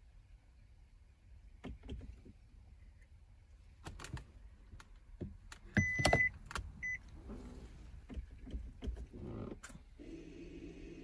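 Clicks and knocks of the start button, pedal and switch being worked in the car's cabin, with a louder knock and a short electronic beep about six seconds in and another beep just after. About ten seconds in, a steady motor whirr starts: the 2018 Mazda 6's rear electric parking brake caliper motors winding the pistons back into service mode.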